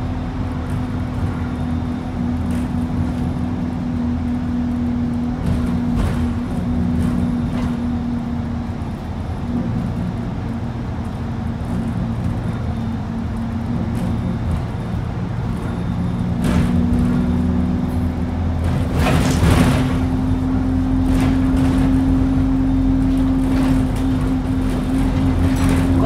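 Alexander Dennis Enviro200 single-deck bus heard from inside the saloon as it drives. The engine and drivetrain run with a steady whine that fades for several seconds midway and returns, and the running grows louder in the second half. A few brief rattles sound from the bodywork.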